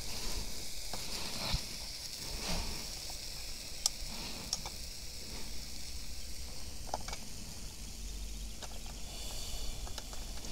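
Scattered plastic clicks and knocks as a gas cartridge is twisted into the base of a Campingaz portable gas grill, over a faint steady hiss.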